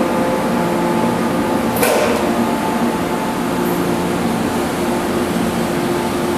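415 series electric train giving a steady mechanical hum with several level tones, and a brief burst of hiss about two seconds in.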